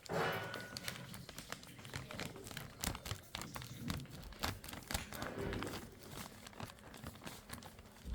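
Packaging being handled during a phone unboxing: scattered clicks, taps and crinkles of cardboard and plastic.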